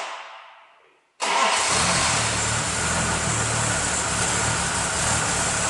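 An earlier sound fades out over the first second, then after a brief silence the 4.2-litre V8 of an Aston Martin V8 Vantage cuts in suddenly and runs steadily at idle.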